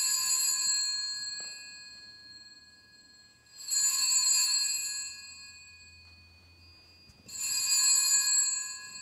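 Altar (sanctus) bells rung three times, about three and a half seconds apart. Each ring is a bright jingle that fades over a couple of seconds. They mark the consecration and elevation of the chalice.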